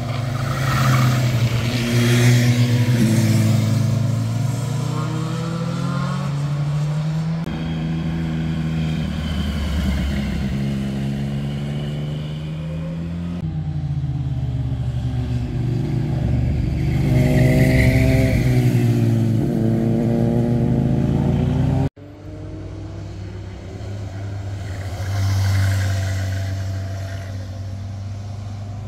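Motorcycles riding one after another through a tight bend, their engines rising and falling in pitch as they ease off into the curve and accelerate out through the gears. The sound breaks off abruptly about 22 s in and resumes with another passing bike.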